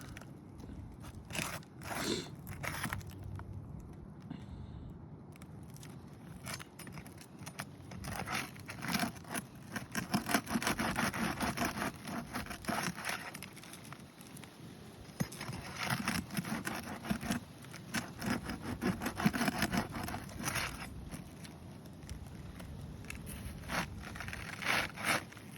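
Scraping and crackling of asphalt roof shingles being worked loose, in bouts of rapid strokes with short pauses between them.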